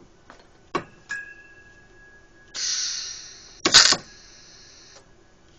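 Soyer BMK-16i inverter drawn-arc stud welder firing a steel fin onto a gear: a couple of clicks and a short steady tone, then shielding gas hissing from the gun's shroud, broken by the brief loud crack of the arc weld about a second later. The gas hiss cuts off near the end.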